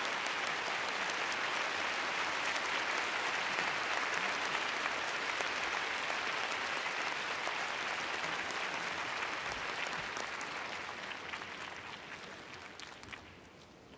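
Large arena audience applauding steadily, the clapping dying away over the last few seconds into a few scattered claps.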